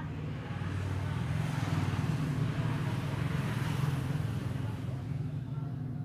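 A passing motor vehicle's engine running, swelling to its loudest in the middle and fading towards the end.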